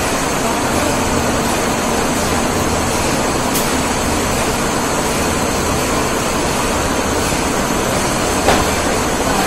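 Slat-chain spiral conveyor and its geared drive motor running under load with rolls aboard, a steady mechanical rumble, with a single knock near the end.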